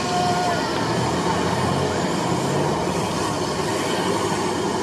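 UAZ off-road trophy truck's engine running hard at high revs while its mud tyres spin through a deep mud-and-water pit, flinging mud and slurry.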